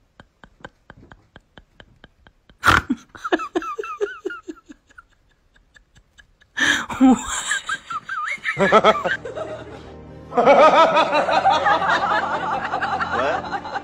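A single sharp knock, then people laughing. About ten seconds in, music with a steady low line joins, under louder laughter.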